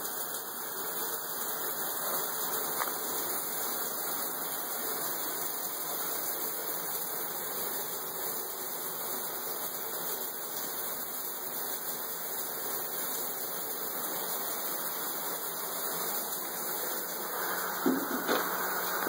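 Steady rushing, hiss-like noise with no clear source, and a couple of short knocks near the end.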